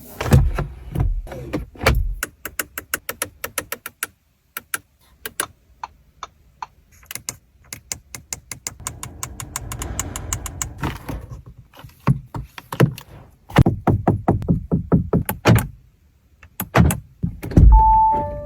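Quick runs of sharp clicks and taps with several heavier thuds from the Audi RS3 Sportback's interior fittings and doors being handled, and a short two-note descending chime near the end.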